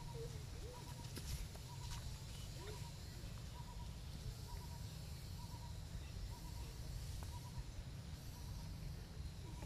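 A bird repeating a short double note over and over, about once every three-quarters of a second, over a steady low rumble, with a few faint short squeaks.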